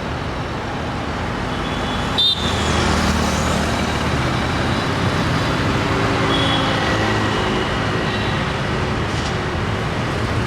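Steady city road traffic: a continuous mix of engines and tyres on a busy road. About two seconds in there is a brief sharp sound, and then a heavier vehicle's engine runs close by.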